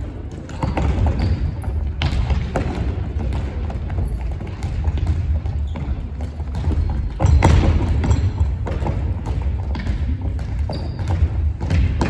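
Footballs being kicked and dribbled on a wooden gym floor: irregular thuds and knocks, the loudest about seven and a half seconds in, over a steady low rumble.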